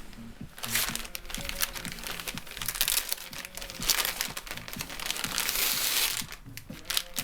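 Crinkling and rustling of a sheet of material being handled and crumpled, in irregular bursts that are loudest in the middle and toward the end.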